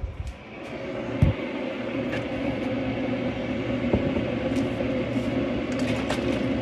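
A steady mechanical hum of a running kitchen appliance, building up over the first second and then holding even, with a single low thump just after it starts and a light click later on.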